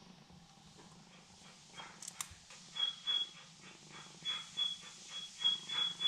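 Two sharp clicks from a medicine syringe being handled, then a run of short, quick snuffling sniffs, about three a second, each with a thin whistle, from a black kitten whose nose is congested by an upper respiratory infection.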